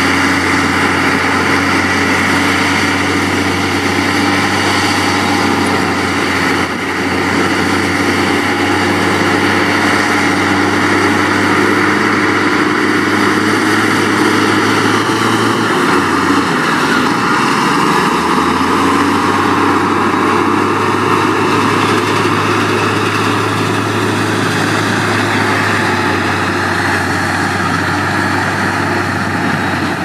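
Heavy diesel engine of earthmoving machinery running steadily, its note drifting slightly in pitch with a brief dip a little past halfway.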